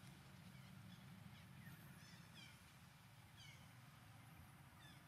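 Near silence: faint outdoor background with a steady low hum and a few faint, short falling chirps.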